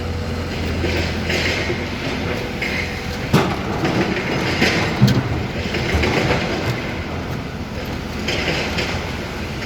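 Hyundai HX220L crawler excavator at work: its diesel engine runs with a steady low hum under recurring harsh metallic noises from the machine. Two sharp knocks come about three and five seconds in.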